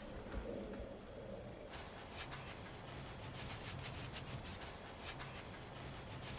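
Faint, irregular scraping and rubbing from work on the caravan's ceiling panels, starting about two seconds in and going on in quick strokes.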